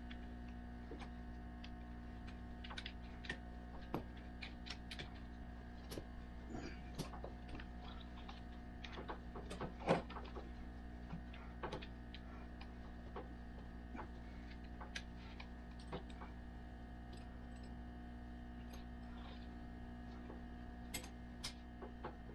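Scattered light clinks and clicks of the side chain, links and hook of a Terra Grip rubber-lug traction device being handled and fitted to a tractor tire, the loudest knock about ten seconds in. A steady hum runs underneath.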